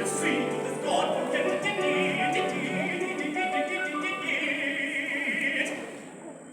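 Choir singing in a full, classical style, with several sustained voice parts; the sound eases off near the end.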